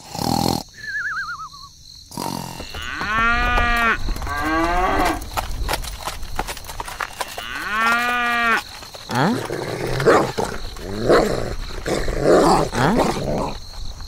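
Cow mooing, added as a sound effect: two long moos, the first about three seconds in, the second near the middle. A short falling warble comes about a second in, and rough, growling animal cries follow in the second half.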